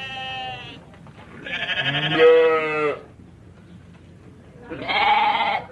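Bleating, probably sheep or goat: three wavering calls, a short one ending just after the start, a longer one about a second and a half in, and another near the end.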